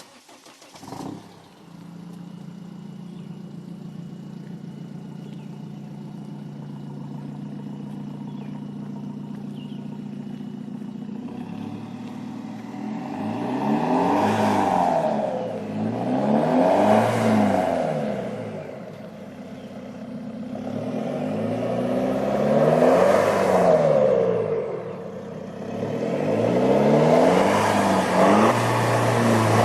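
Dodge Nitro engine heard through an aftermarket stainless steel dual-outlet exhaust that keeps its catalytic converter. It starts about a second in, idles steadily, and from about halfway on is revved four times, each rev rising and falling in pitch, the later ones louder.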